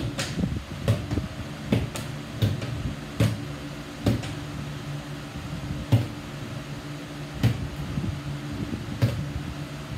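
Plastic water bottles knocking down onto a ping-pong table as they are flipped, about nine sharp knocks at irregular intervals with a pause in the middle, over a steady low hum.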